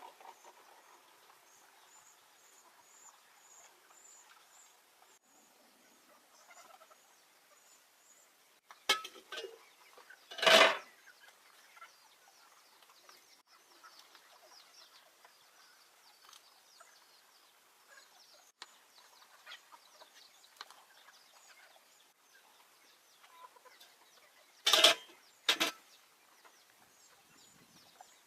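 Domestic chickens calling, with one loud call about ten seconds in and two sharp loud calls near the end. Faint high bird chirps in the first few seconds.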